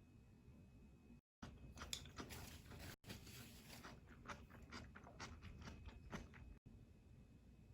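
Close-up chewing and biting of stir-fried onion and egg: soft wet crunches and mouth clicks, several to the second. The sound drops out briefly a few times.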